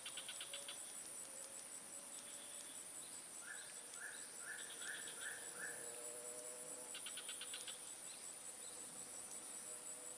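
Faint, steady high-pitched insect chorus from the marsh, with a run of five short chirps about halfway through and a few brief ticking trills.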